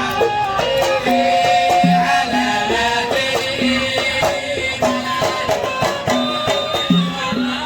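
Instrumental passage of Hadrami sawt music: a stepping melody on string instruments over a steady hand-drum beat.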